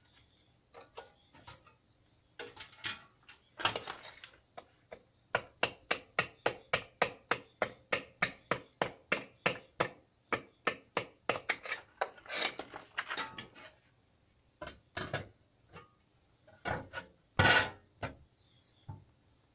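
A hand tool knocking repeatedly on a hard surface. It starts with scattered knocks, settles into a steady run of about three blows a second, and ends with a few louder, slightly longer knocks and scrapes. The angle grinder is not running.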